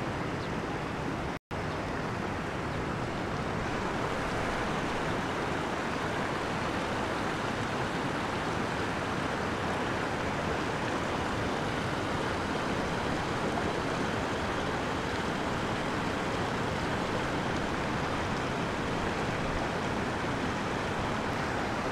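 Steady rush of running water pouring and flowing through concrete fish-farm ponds. There is a split-second dropout about a second and a half in.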